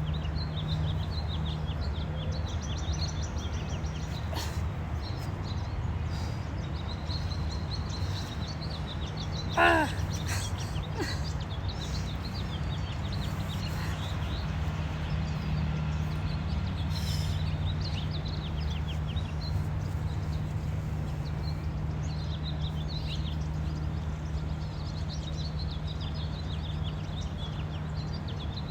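Small birds chirping, with many short, high calls scattered throughout over a steady low hum. About ten seconds in there is one louder, short pitched call.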